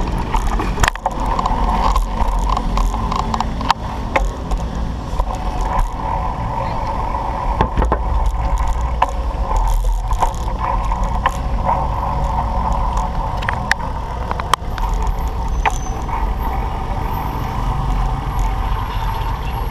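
A BMX bike rolling along pavement, heard from a camera mounted on it: a steady rumble with frequent sharp clicks and knocks as it goes over the paving and bumps.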